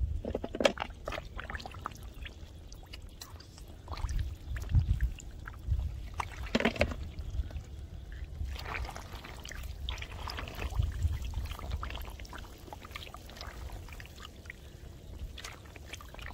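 Hands sloshing and scooping through shallow muddy water, with irregular splashes and wet squelches of mud.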